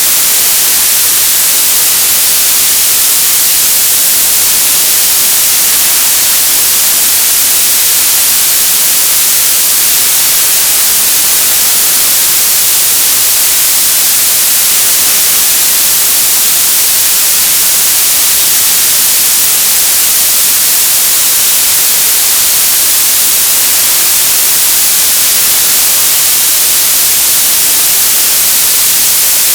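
Loud, steady television static: an unbroken hiss, bright and high-pitched.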